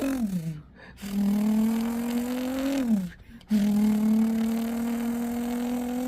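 Nissan GT-R R35's twin-turbo VR38 V6 engine running under steady load, its pitch level to slowly rising. Twice, about a second in and about three seconds in, the revs fall off and the sound breaks off briefly before it picks up again.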